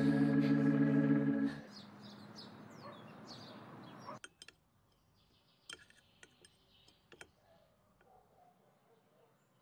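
A held music chord cuts off about a second and a half in. Birds chirp over light outdoor ambience, then after a sudden drop a quiet room holds a few light clicks of cutlery on dishes and faint chirps.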